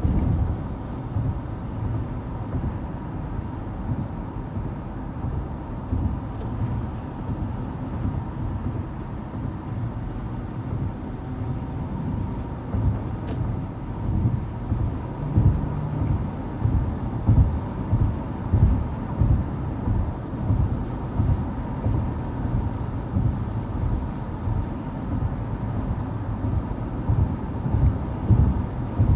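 Steady road and engine noise heard inside a car cruising at highway speed: a low rumble of tyres and engine with a faint steady hum, and low thumps recurring about once a second in the second half.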